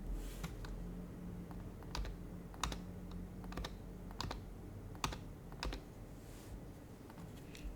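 Scattered keystrokes on an HHKB Professional HYBRID Type-S keyboard with silenced Topre switches: about a dozen soft clicks at an uneven, unhurried pace, some in quick pairs, rather than a run of steady typing.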